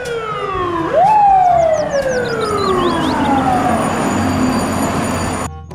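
Fire-engine siren wailing. About a second in, its pitch jumps up quickly, then slides slowly down over about three seconds, fades into a hiss, and cuts off suddenly near the end.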